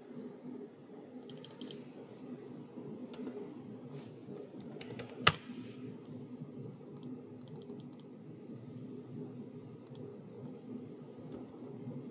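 Computer keyboard typing in short bursts of key clicks, with one loud sharp click about five seconds in, over a steady low hum.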